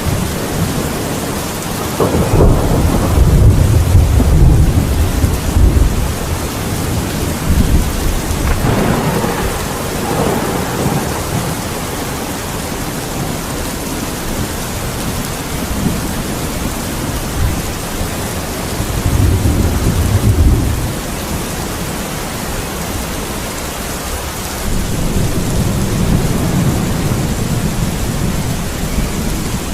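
Steady heavy rain with rolls of thunder rumbling over it, the loudest at about two to six seconds in and again at about twenty seconds, with further rumbles between and near the end.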